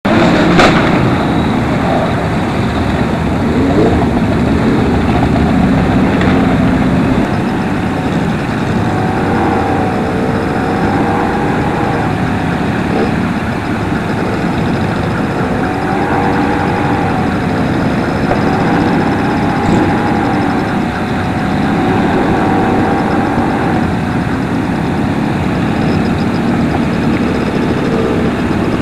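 A pack of motorcycles riding together at low speed, heard from within the group: a steady mass of engine noise, with engine notes rising and falling gently as riders open and close the throttle.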